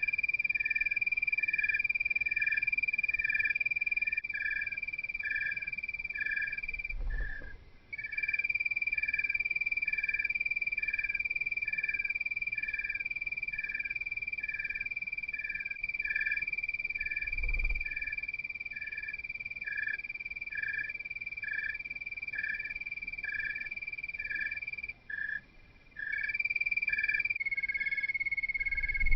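Calling animals at night: a steady high-pitched trill that breaks off twice, with a second call pulsing about twice a second beneath it.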